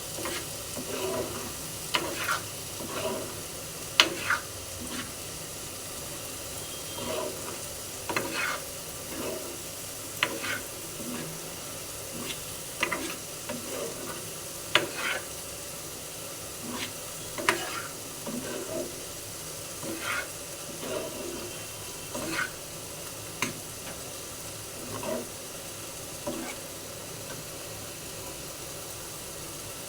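A spatula stirring and scraping in a pan of sizzling food, with sharp knocks against the pan every second or two over a steady frying sizzle.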